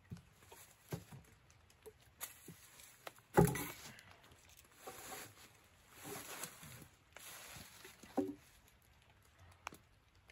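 Firewood logs being handled: wooden knocks as logs strike each other and the ground, the loudest a little over three seconds in and another near eight seconds, with dry leaves rustling as a log is dragged across the leaf litter between them.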